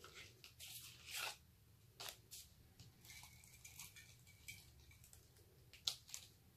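Faint sounds of a tape pen being run along cardstock to lay adhesive, with short scraping strokes as the card strips are handled and slid on the desk, and a sharp click near the end.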